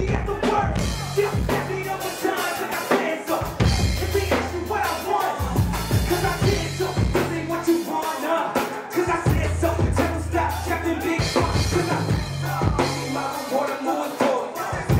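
Live hip hop song: a rapper's vocal over a beat with drums and long, deep bass notes, amplified through a club PA.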